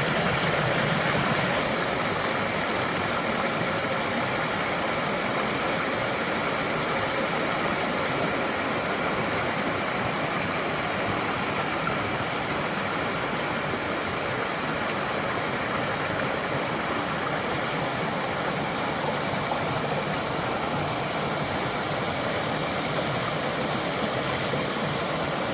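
Creek water rushing steadily over rocks, an even, unbroken rush.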